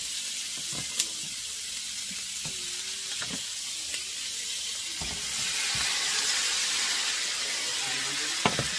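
Sausage and onions sizzling in a hot wok as they are stirred with tongs, with a sharp click about a second in. About five seconds in, browned chicken pieces are tipped into the pan and the sizzle grows louder, with a couple of clacks near the end.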